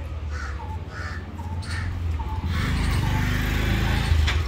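Crows cawing over and over, short calls about two a second, above a steady low hum. Midway a louder rushing noise swells for about two seconds and ends in a sharp click.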